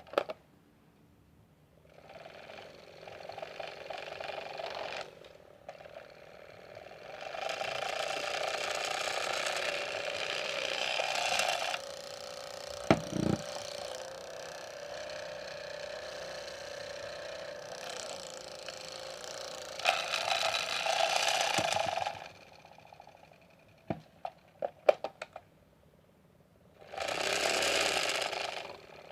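Washing machines running, heard in several separate stretches that start and stop abruptly, with a steadier hum in the middle and a few sharp clicks near the end.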